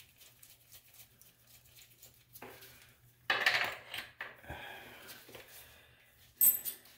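Small metal toilet T-bolt hardware being handled against a plastic toilet floor collar: a scraping rattle about three seconds in, a few light clicks, then sharp metallic clinks near the end.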